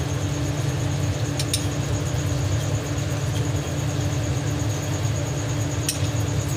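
Steady low rumble with a constant hum, the running background of a home kitchen during stovetop cooking, with a few light clicks about a second and a half in and again near the end.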